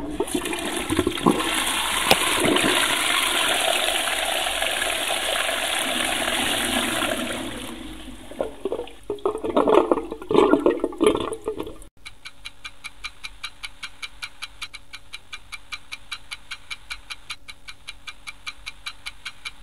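A toilet flushing: a loud rush of water that, after about eight seconds, breaks up into gurgling. Then, after a sudden cut, a clock ticking steadily.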